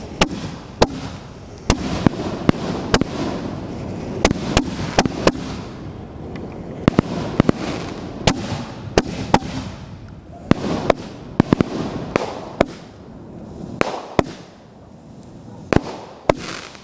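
Fireworks going off in quick succession: dozens of sharp bangs and cracks at irregular spacing, with a hissing rush between them. It eases to a quieter stretch shortly before the end, then the bangs pick up again.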